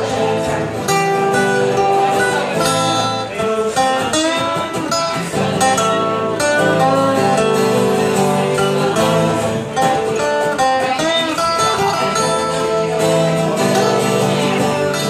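Live acoustic guitar playing a slow song, strummed and picked, with longer held notes sounding underneath.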